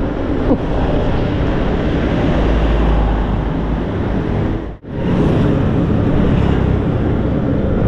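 Wind rushing and buffeting over the microphone of a rider on a moving Super Soco CUx electric scooter, a steady low rushing noise. It cuts out for an instant about five seconds in, then resumes.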